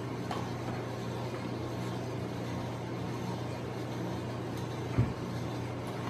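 A steady low hum, with a thick milk mixture being poured from a blender jar into plastic cups. About five seconds in, a single thud as the jar is set down on the stone counter.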